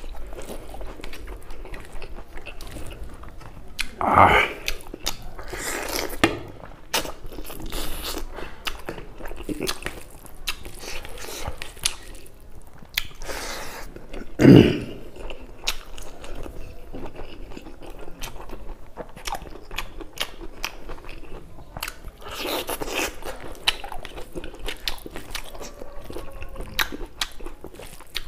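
Close-miked chewing and eating: a man chewing mouthfuls of spicy buffalo meat curry and rice eaten by hand, with many small mouth clicks throughout. A few louder mouth noises stand out, about four and again about fourteen seconds in.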